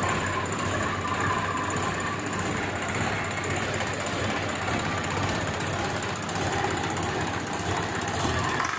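HMT 5911 tractor's four-cylinder diesel engine running steadily, with an even, rapid mechanical beat, on its first start after an overhaul to 105 mm pistons.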